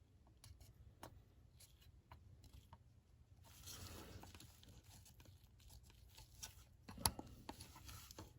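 Faint handling of a plastic model car body and small tools: scattered light clicks, a soft rustle a few seconds in, and one sharper click near the end.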